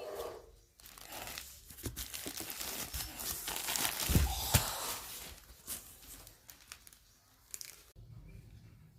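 Plastic wrapping of a diaper-pants pack being torn open and crinkled. The crackling is loudest about four seconds in, then thins to a few scattered crackles.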